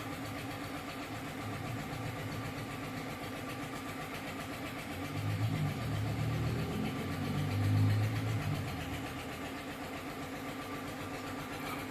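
A steady machine-like hum with a fast buzz, growing louder and deeper for a few seconds in the middle before settling back.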